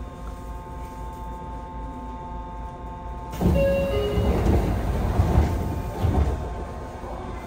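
Inside a Yokohama Blue Line 3000A subway car standing at a station: a steady hum with a few held tones, then about three and a half seconds in a sudden louder rush of noise with a few short tones. The rush fades by about six and a half seconds.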